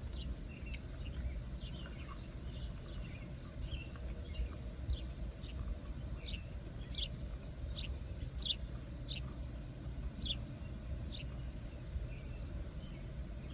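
A bird chirping repeatedly, short sharp downward notes about once or twice a second, over a steady low rumble.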